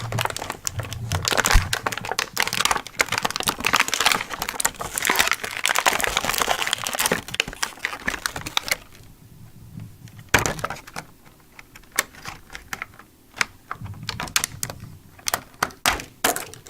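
Plastic packaging crinkling and small plastic toy parts clicking and clattering as they are rummaged through, dense for about the first nine seconds, then sparser single clicks.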